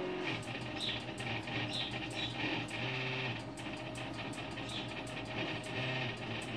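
Background guitar music, with the NEMA 17 stepper motors of a home-built belt-driven laser engraver whirring beneath it as the head rasters back and forth.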